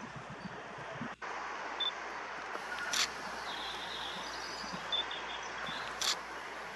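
Steady rushing outdoor background noise, with a few short high chirps and a brief run of quick chattering notes. Two sharp clicks come about three seconds apart.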